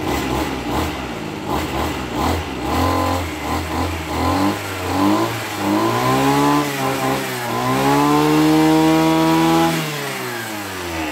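Tanaka TBC340S brush cutter's 34cc two-stroke engine idling for about four seconds, then revved with the throttle: the pitch rises and falls a couple of times, holds at high revs for about two seconds, and drops back to idle near the end.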